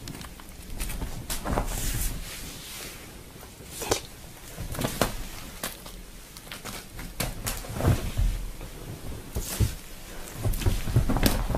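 Kitten playing with a crumpled foil ball: scattered crinkles, rustles and soft knocks at irregular intervals as it paws and mouths it.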